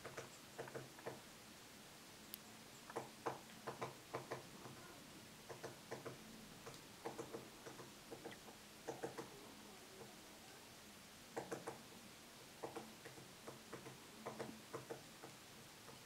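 Woodpecker pecking at wood: irregular sharp taps, often in quick groups of two to four, with short pauses between the groups.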